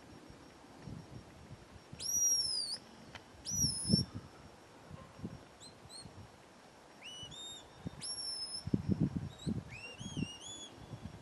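Shepherd's whistle commands to a working sheepdog: two long whistled notes that slide up and then down, followed by a series of short, repeated rising chirps. Low muffled thumps come in between.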